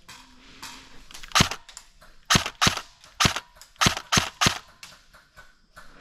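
Airsoft guns firing single shots: about seven sharp cracks, irregularly spaced roughly half a second to a second apart.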